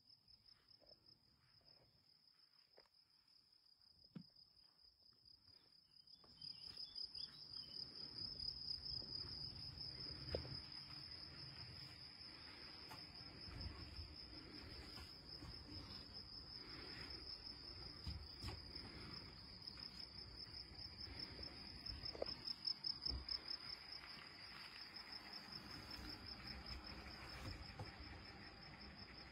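Crickets chirping in a steady, high-pitched pulsing trill that grows louder about six seconds in, with a low rumble underneath from then on.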